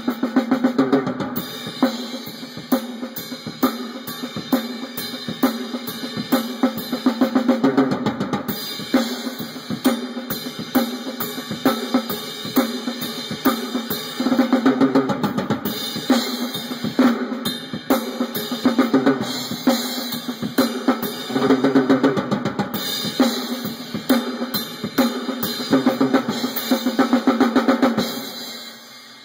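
A drum-kit recording played back through a car's sound-quality audio system, with Rockford Fosgate component speakers and 12-inch subwoofers, heard inside the cabin. Quick snare, bass drum and cymbal hits move across the soundstage, and the track fades out near the end.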